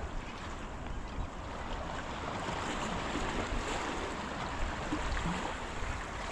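Small sea waves washing and splashing against the boulders of a rock jetty, a steady wash with wind rumbling on the microphone.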